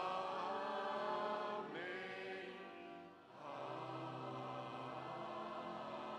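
Large mixed youth choir singing long held chords. About three seconds in the sound briefly falls away at a phrase break, then a quieter chord is held.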